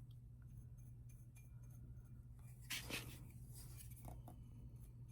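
Near silence over a low steady hum, with one soft brief rubbing sound about three seconds in and a few faint clicks of small objects being handled.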